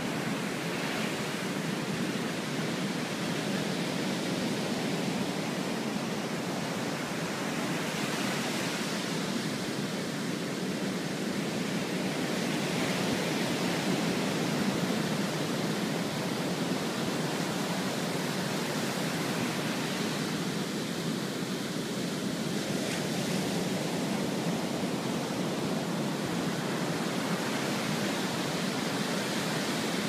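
Sea surf breaking and washing up onto a sandy beach: a steady rush of white water that swells briefly now and then as a wave crashes.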